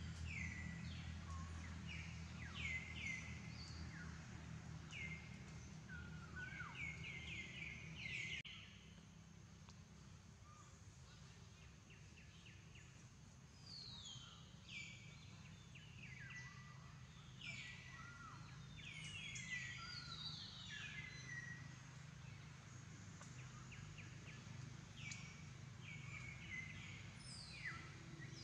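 Outdoor ambience of small birds calling, with repeated short falling chirps coming in quick clusters throughout. Under them runs a low steady hum that drops away about eight seconds in.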